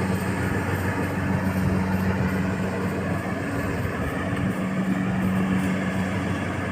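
Rice combine harvester running steadily, a constant engine drone under a dense mechanical noise with no let-up.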